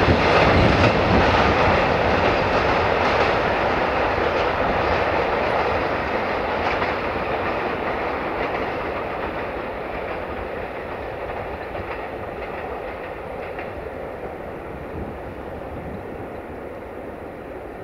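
Tank wagons of a freight train rolling away, their wheels clattering over the rail joints in a steady noise that fades as the train recedes.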